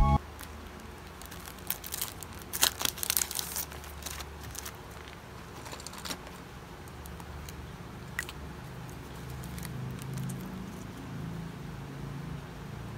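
Faint clicks and crinkling of small objects being handled, clustered in the first few seconds, over a low steady hum.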